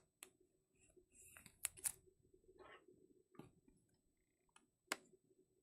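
Faint scattered clicks and soft rustles of trading cards and rigid plastic card holders (toploaders) being handled, as cards are slid into them.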